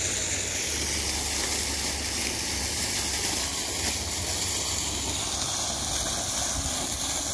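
Fountain jet of sulphur spring water splashing into a stone basin: a steady rushing hiss.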